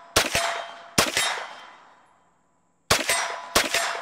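Four unsuppressed 9mm shots from a Trailblazer Pivot (Pac-9) straight-blowback folding carbine, in two pairs. Two shots come under a second apart, then a pause of about two seconds, then two more. Each shot fades out in a short echo.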